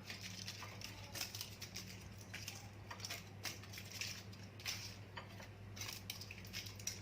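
Faint kitchen handling sounds, light scattered clicks and rustles as cheese is added to a pot of cooked lentil soup, over a steady low hum.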